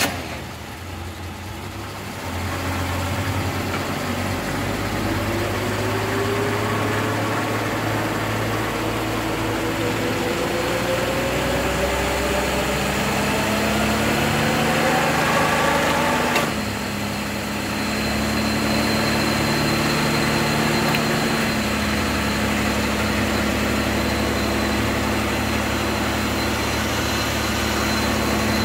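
Chrysler 727 TorqueFlite automatic transmission with a forward-pattern manual valve body running on a transmission dyno during a test pull. The drive spins up and its pitch climbs steadily for about twelve seconds, then drops suddenly with a click about sixteen seconds in. It then runs on steadily with a faint high whine.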